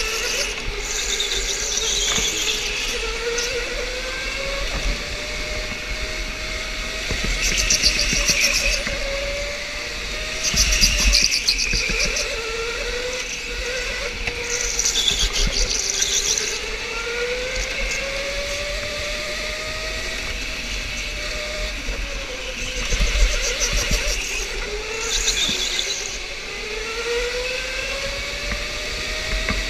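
Electric go-kart at speed: its motor whine rises and falls as it speeds up and slows down, with tyres squealing through the corners every few seconds.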